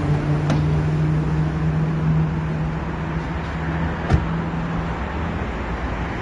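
Steady vehicle running noise: a low engine hum over a broad rumble. A faint click comes about half a second in and a sharper knock about four seconds in.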